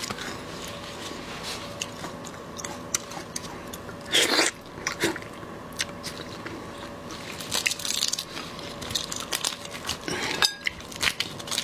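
Gloved hands breaking apart and peeling a large tiger prawn: the shell cracks and crackles in many small sharp clicks, with a louder crunch about four seconds in.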